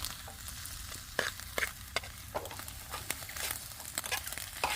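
Scrambled egg sizzling faintly in a pan as a spatula stirs it, with irregular scrapes and taps of the spatula against the pan.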